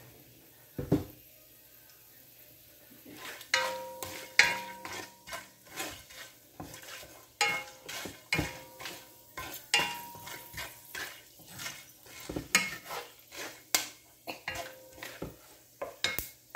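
Wooden spatula stirring and scraping whole spices frying in oil and ghee in a metal frying pan. After a quiet start with a single knock, a run of repeated knocks and scrapes begins about three seconds in.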